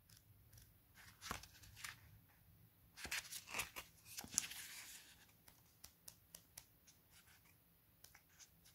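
Paper pages of a small paperback booklet being turned by hand: faint rustles and flicks, busiest about three to five seconds in, then a few light ticks.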